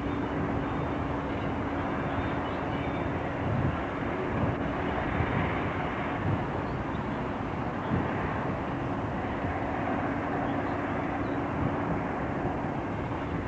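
Distant diesel locomotives running in a freight yard: a steady engine drone with a hum that fades away midway and returns near the end.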